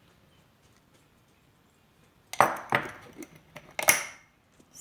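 A metal spoon clinking against cookware as a spoonful of turmeric is added: quiet for about two seconds, then a few sharp clinks, the loudest near the end with a short ring.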